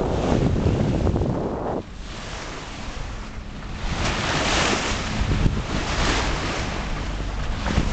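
Wind buffeting the microphone over the rush of waves and spray along a sailboat's bow in rough water. The noise drops suddenly about two seconds in, then builds back in hissing surges.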